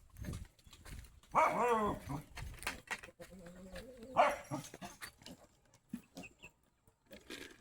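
An animal calling: one drawn-out, wavering call about a second and a half in, and a shorter call about four seconds in, among faint scattered knocks.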